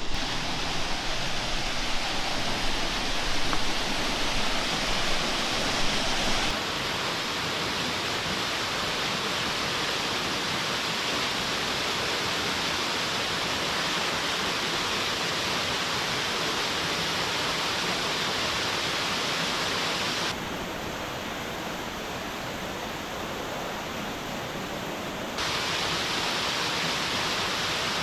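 Steady rushing and splashing of a small waterfall. The sound changes abruptly a few times, with a duller, quieter stretch a little before the end.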